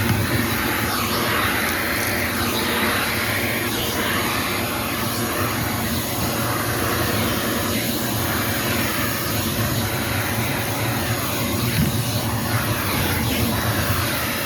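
Hyper Tough 1.5-gallon shop vacuum running steadily while its nozzle is worked over a car's interior, the pitch of the air rush shifting as the nozzle moves.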